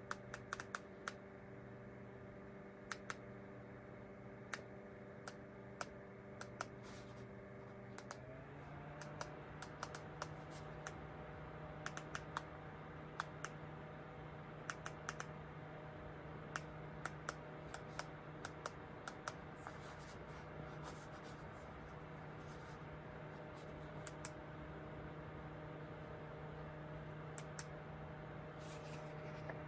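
Small plug-in ceiling fan's motor humming steadily, changing to a new pitch about eight seconds in as its speed is switched, with scattered light clicks throughout.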